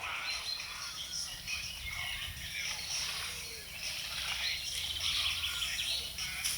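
Birds chirping over steady outdoor background noise, with a low rumble that grows stronger near the end.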